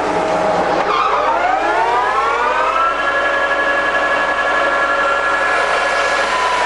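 Arad SNA-560 centre lathe's spindle and geared headstock spinning up to its top speed of 1600 rpm: a whine that rises in pitch for about two seconds, then holds steady.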